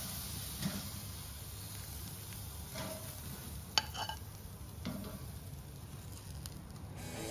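Freshly grilled lamb rump steaks sizzling in their juices on a plate, with a few light metal tong clinks against the plate about halfway through.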